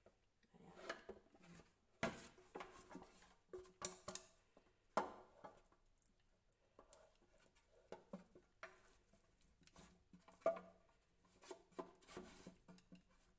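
Wooden chopsticks turning flour-coated chicken wings in a stainless steel pan: faint scraping and irregular light clicks of the chopsticks against the metal, with soft knocks as the pan is tilted.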